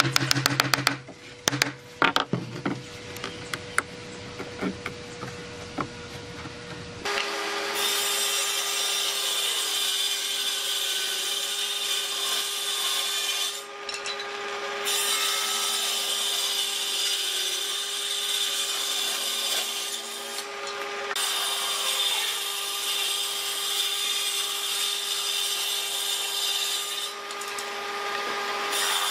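A wooden mallet knocking a few times on a clamped glue-up of pine boards. Then, from about seven seconds in, a table saw on a combination woodworking machine running and ripping pine boards into strips: four loud cuts, each with a short gap between where the blade spins free.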